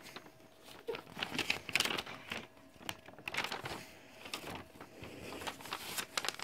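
Irregular rustling and crinkling with scattered light clicks and taps, over a faint steady hum.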